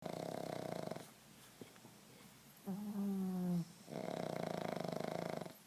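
Sleeping pug snoring: two long rattling snores, with a short whistling breath between them that falls slightly in pitch.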